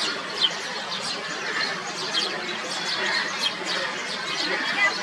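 A flock of house sparrows chirping over one another in a steady, dense chatter of short high chirps.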